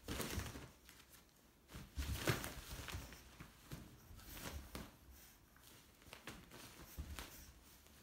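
Fabric cat tunnel rustling and crinkling in irregular bouts as a pug puppy and a cat scramble and pounce around it on carpet, with soft paw thumps.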